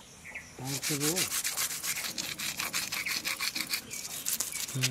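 Small fish being scaled by rubbing them hard back and forth on a rough stone: rapid, repeated gritty scraping strokes, starting about half a second in and stopping just before the end.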